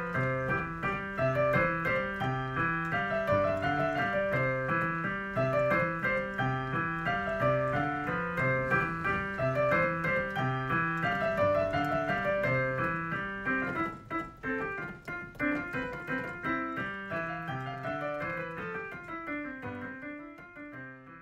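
Background piano music with a recurring bass pattern, fading out near the end.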